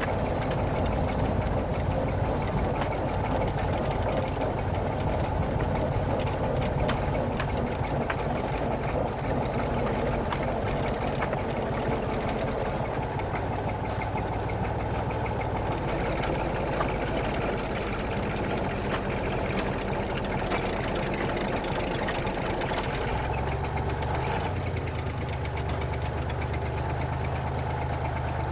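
Diesel engine of a narrow-gauge train running steadily as it rolls along, heard from the cab, with rattling and clicks from the running gear on the track. About 23 seconds in, the engine note shifts.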